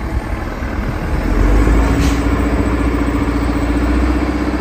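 Heavy construction-machine engine running, a wheel loader engine sound effect; a steady drone with a deep rumble that swells about a second in.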